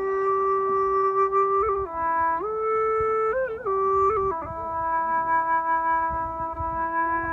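Bamboo suling flute playing a slow, sad melody of long held notes linked by quick ornamental turns, settling on a long low note in the second half.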